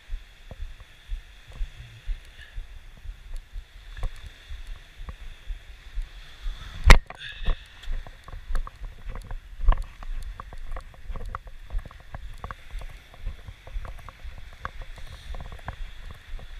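Walking footsteps on a sand and pebble beach, heard as low thuds about twice a second through a body-worn action camera, over a steady hiss of surf washing ashore. One sharp knock about seven seconds in.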